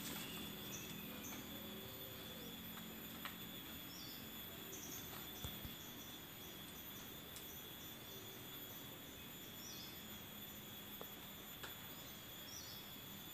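Rural outdoor ambience: a steady high insect drone with many short, high bird chirps repeating throughout, and a faint low thump about five and a half seconds in.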